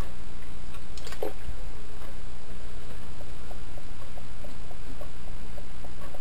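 Steady low electrical hum in the recording, with a sharp click about a second in. From about halfway, faint regular scratching, about three or four strokes a second, of a cotton bud scrubbing inside a small plastic model-locomotive motor case.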